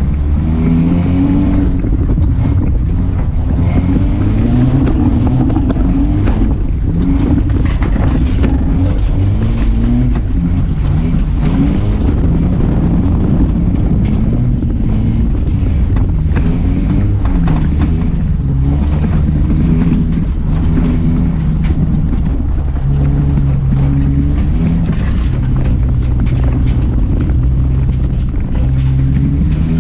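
Old Saturn car's engine driven hard through a field: revving up and falling back again and again as the gears are worked, with many short knocks throughout.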